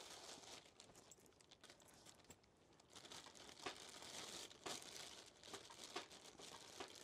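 Faint crinkling and rustling of a thin plastic bag being handled and folded, in irregular short crackles that grow busier after about three seconds.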